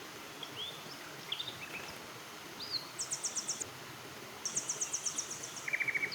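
Wild birds calling over a steady background hiss: a few short chirps, then two rapid high trills of several quick notes each, and a lower-pitched trill near the end.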